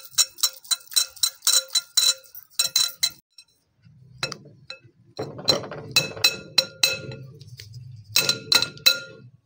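A hand grater clinking and scraping against a ridged glass bowl as a boiled egg is grated into it, the glass ringing with each knock. The clinks come in three quick runs of about three or four a second, with a short pause after about three seconds, and the middle run has a dull rubbing underneath.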